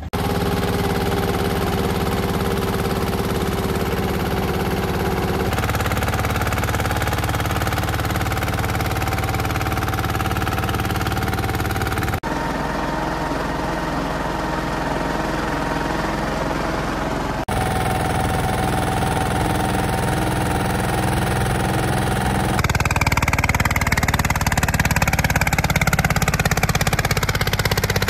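Escorts Steeltrac 15 mini tractor's diesel engine running steadily while pulling a trolley loaded with cement bags. The sound changes abruptly several times, and over the last few seconds it grows louder with a high whine falling in pitch.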